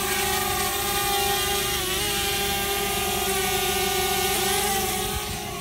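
Small quadcopter drone's propellers whining steadily as it lifts off and hovers, with a brief dip in pitch about two seconds in.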